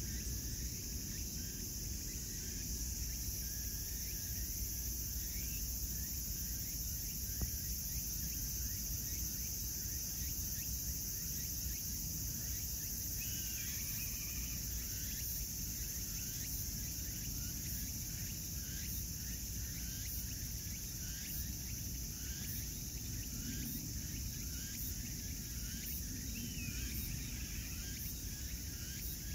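Insect chorus: a steady, high-pitched buzz of singing insects, with short chirps repeating through it over a low outdoor rumble.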